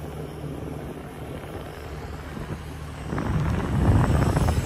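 Steady low vehicle and road noise, then a passing van that grows louder about three seconds in and is loudest near the end.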